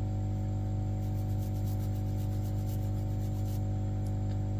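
Steady electrical hum, with faint scratchy strokes of a toothbrush scrubbing a remote-control circuit board to clean the pads after the IC has been removed; the brushing stops about three and a half seconds in.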